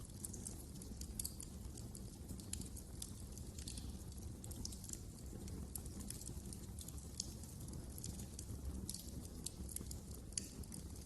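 Wood fire crackling: frequent irregular sharp snaps and pops over a low, steady rush of the flames.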